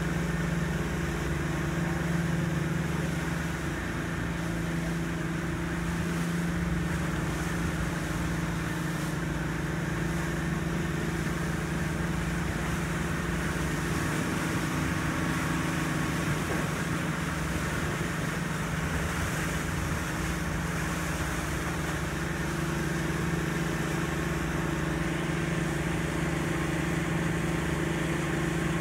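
Motorboat engine running at a steady speed while under way, a constant hum over a rush of water and wind.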